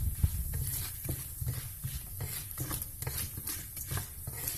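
Spatula stirring and scraping a tempering of seeds, dal and peanuts in hot oil around a nonstick pan, in repeated strokes of about two or three a second.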